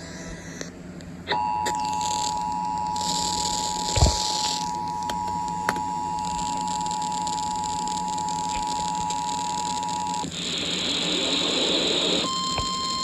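Emergency Alert System two-tone attention signal, a steady two-note tone of about 853 and 960 Hz, sounding over a radio broadcast for about nine seconds ahead of a severe thunderstorm warning. It cuts off into a couple of seconds of hiss, and then a single higher steady tone starts near the end.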